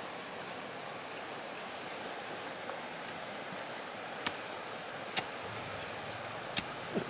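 Steady rush of a flowing stream, with a few sharp knocks of a hand hoe striking the soil in the second half.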